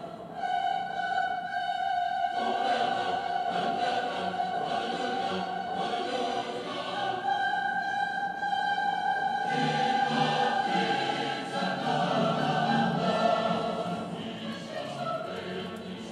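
Choral, operatic music with orchestral backing, the soundtrack to a choreographed fountain show. Voices hold long, sustained notes, and the music quietens a little near the end.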